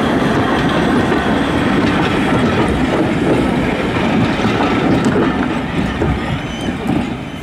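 Vintage compartment coaches rolling slowly past at close range, their wheels clattering over the rail joints. The noise falls away near the end as the last coach goes by.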